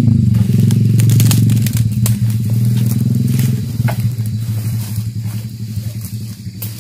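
An engine running at a steady speed, growing fainter over the last three seconds, with scattered short clicks.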